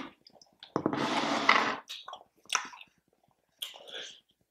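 Close-miked chewing of food, with wet, squishy mouth sounds and smacks. A louder stretch of about a second comes about a second in.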